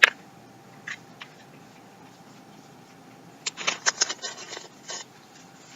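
A sharp click, two faint ticks, then about a second and a half of quick, irregular crackling near the middle, from a crunchy snack and its packet being handled and eaten.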